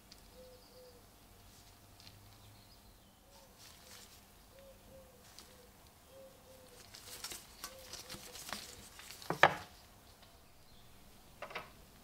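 A bird's soft low calls, short notes in pairs repeating, faint in the background. Later come light clicks and rustling as the old drawknife is handled, with one sharp knock about nine and a half seconds in, the loudest sound.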